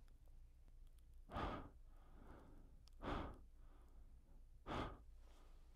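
Three short, breathy exhalations, evenly spaced about a second and a half apart, over a faint low hum.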